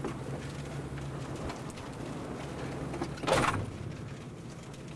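Rain tapping on a vehicle with a steady low hum from its idling engine, heard from inside the cab during a thunderstorm. About three seconds in there is one short, loud burst of noise.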